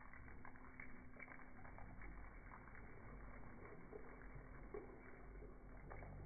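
Faint splashing and lapping of water as children move their hands in a shallow inflatable pool, small irregular splashes over a low steady hum.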